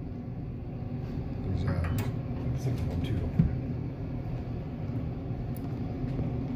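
Steady low rumble with scattered metallic clicks and knocks from a ratchet wrench tightening the bolts of a hydraulic elevator cylinder head; one sharp knock about halfway through is the loudest.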